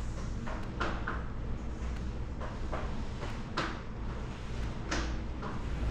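Kitchen background: a steady low hum with a few short, soft knocks and rustles scattered through it.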